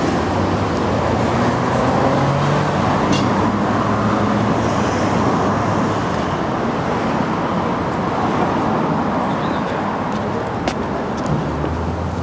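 Steady city road traffic: cars passing on a nearby street, a continuous rumble with low engine hum that swells now and then.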